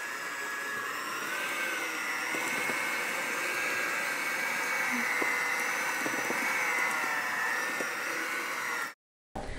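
Sunbeam electric hand mixer running steadily with its beaters in stiff dough in a stainless steel bowl: a motor whine that wavers slightly in pitch. It cuts off suddenly near the end.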